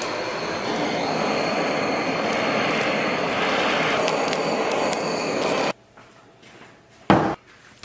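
Handheld butane torch on a gas canister burning steadily as its flame singes the hair off pork belly skin, then cut off suddenly just before six seconds in. A single thud follows about a second later.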